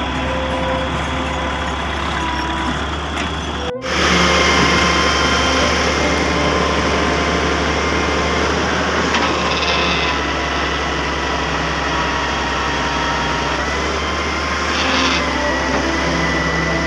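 Heavy diesel machinery engine running steadily under load, with a high steady whine over it. About four seconds in the sound cuts out for an instant and comes back louder.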